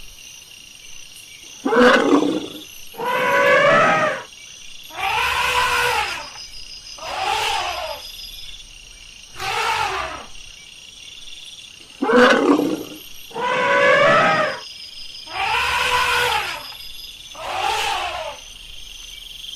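Elephant calling: about nine loud calls, each about a second long, repeating roughly every two seconds.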